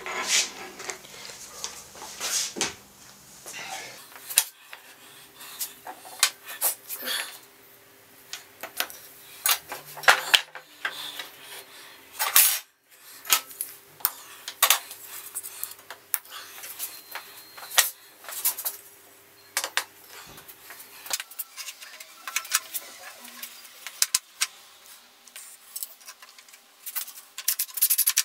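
Irregular clicks, taps and light metallic clinks from handling tools, timber and an aluminium angle plate, over a faint steady hum.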